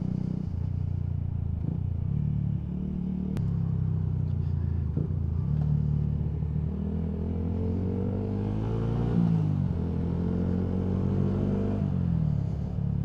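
Single-cylinder 125cc engine of a Yamaha MT-125 motorcycle with an aftermarket Scorpion full exhaust, under way. The note holds steady at first, then the revs climb twice in the second half with a sharp drop between the climbs.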